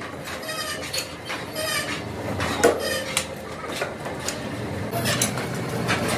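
Steel wheel disc clinking and clanking against its metal clamp plate and fixture as it is turned and repositioned by hand, a string of sharp metal knocks with the loudest, briefly ringing one about two and a half seconds in.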